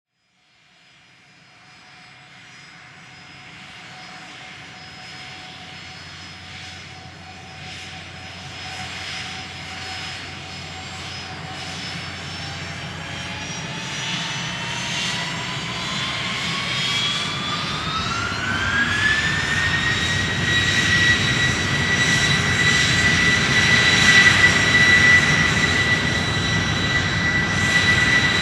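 Jet aircraft engines spooling up: a whine that climbs in pitch over several seconds and then holds steady and high, over a rising rush that grows steadily louder, as for takeoff.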